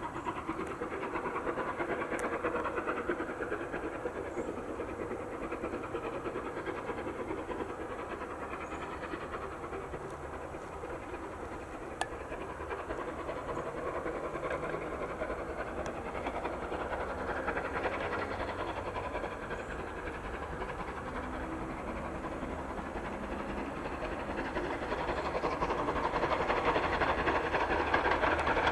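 Steam locomotive hauling a passenger train up a gradient, its exhaust and the train's running growing louder as it approaches. There is a single sharp click about halfway through.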